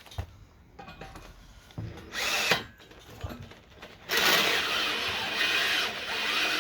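Electric hand drill boring into steel, a short burst about two seconds in and then a steady run from about four seconds on. The drill is getting a little bit battered.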